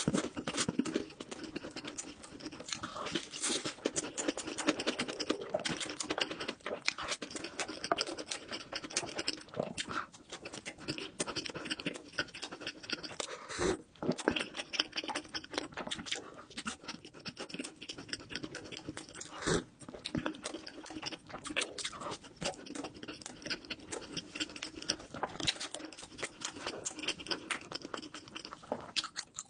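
Close-miked eating: chewing with dense, irregular crisp clicks and crunches, continuing without a break.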